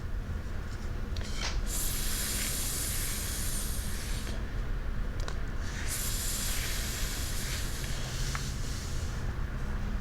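Fingertips rubbing across a sandpaper letter, heard as a scratchy hiss in two long strokes, one about two seconds in and one about six seconds in.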